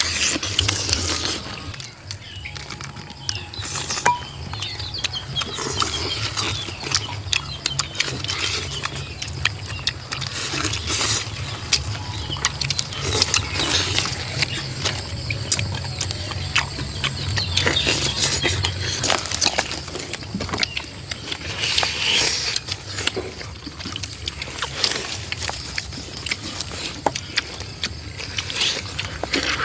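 People chewing, smacking and tearing at roasted crocodile meat, with many short, irregular crackles and wet mouth sounds.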